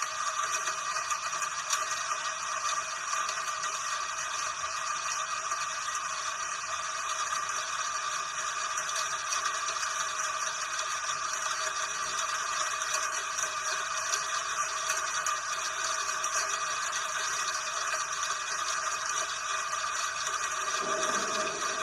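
Rain falling steadily, an even hiss with no thunder.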